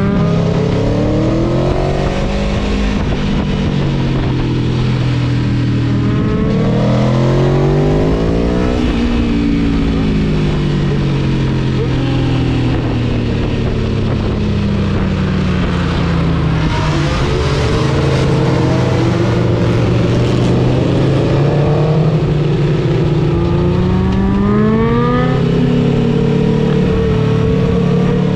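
Gabro Stage 3 tuned Aprilia Tuono V4 engine being ridden hard through the gears. The revs climb in the first seconds, fall away in a long deceleration, hold steadier for a while, then climb again near the end.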